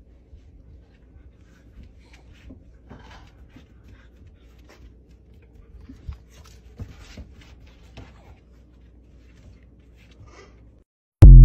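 Faint scuffs and rustles of two dogs playing and rolling on a snowy wooden deck, over a low steady rumble. Right at the end a sudden, very loud pitched burst cuts in.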